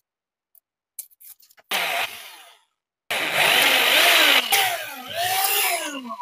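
Electric hand drill boring into a knife handle: a short run about two seconds in, then a longer run from about three seconds, the motor's pitch falling and rising several times and sagging near the end.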